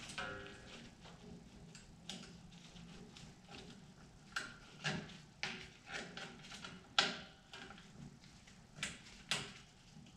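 Light metallic clicks and clinks of drum brake hardware, the self-adjuster parts and springs, being handled and fitted by hand. It is a scatter of short sharp ticks, most of them in the second half.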